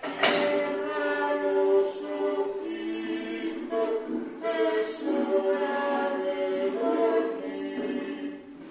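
A choir singing without instruments, several voices holding long notes in short phrases; it comes in abruptly at the start.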